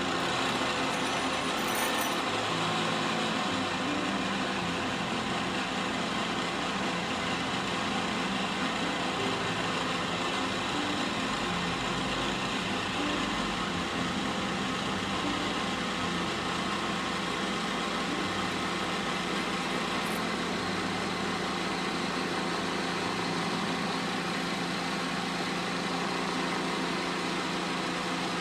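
Belt-driven pillar drill running steadily at about 3000 rpm, spinning a bolt against a steel ball and a second bolt to friction-weld them: an even motor hum and spinning noise.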